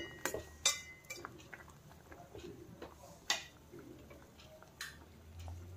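A metal spoon clinking a few times against a stainless steel pot of boiling vegetables, the strikes in the first second ringing briefly, over a faint low steady hum.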